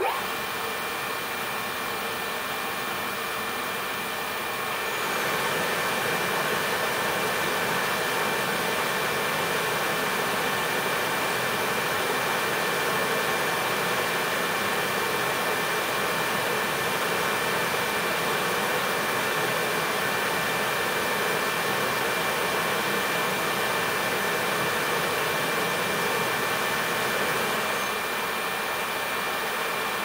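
Heating burner running: a steady rushing noise with constant whining tones over it. It starts abruptly, gets louder about five seconds in, and drops back slightly near the end.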